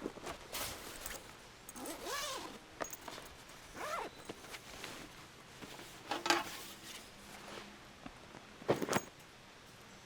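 Handling noises: a run of short rasping strokes, two of them swooping up and down in pitch, with sharp knocks about six and nine seconds in.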